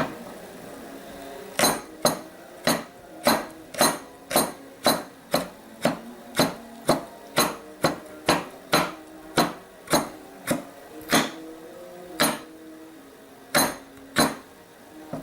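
Hard, evenly paced strikes on kencur (aromatic ginger) root in kitchen preparation, about two a second for some ten seconds, then three slower, spaced-out blows near the end.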